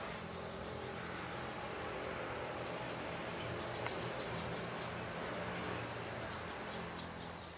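A chorus of insects: a steady, high-pitched drone, with a faint pulse repeating about once a second.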